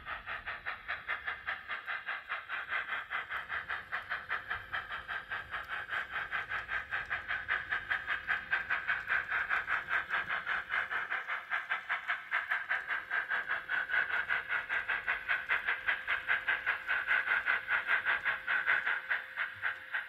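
Sound-fitted N gauge model of an LMS Stanier 8F 2-8-0 steam locomotive giving a steady, even exhaust chuff of about four beats a second, through the model's small on-board speaker. A faint steady hum runs underneath.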